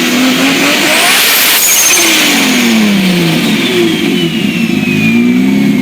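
Turbocharged car engine under hard acceleration. Its pitch drops and climbs again through gear changes, with a strong hiss in the first couple of seconds and a high whistle falling slowly in pitch over the second half.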